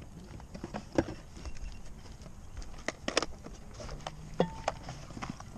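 Small cardboard and plastic product boxes being handled and set down on tarmac, giving a few sharp light taps and knocks: about a second in, around three seconds in, and just after four seconds in.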